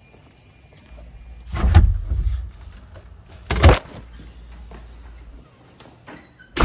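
Knocks and thumps around a front door, with a sharp bang near the end; a low rumble runs under the middle.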